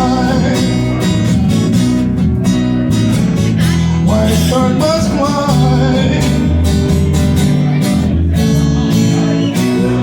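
Live band music: guitar strummed over an electric bass line, playing the instrumental stretch near the close of a song.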